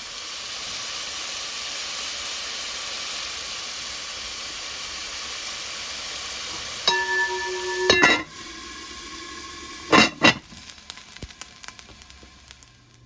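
Beef liver sizzling in a frying pan, a steady hiss. About seven seconds in a tone rings for about a second, followed by clatter and two sharp knocks about ten seconds in, after which the sizzling falls away.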